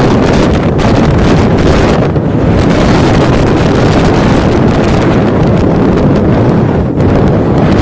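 Strong wind buffeting the phone's microphone, loud and gusty, over the rush of heavy seas breaking along a cargo ship's hull in a storm.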